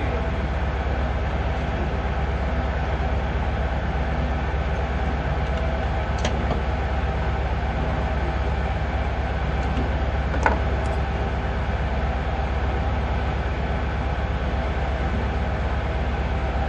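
Steady low drone of a ship's running machinery, unchanging throughout, with a light click about six seconds in and a sharper knock about ten seconds in.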